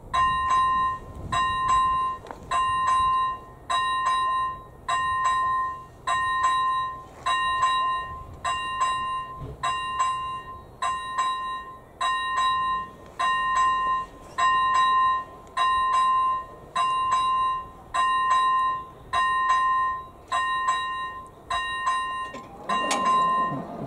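The electronic bell (AŽD ZV-01) of an AŽD 97 level-crossing warning signal, ringing an evenly repeated bell tone about once every 1.2 seconds: the crossing is warning of an approaching train. Near the end a lower motor whine with a falling pitch starts, as the barrier drive begins to lower the booms.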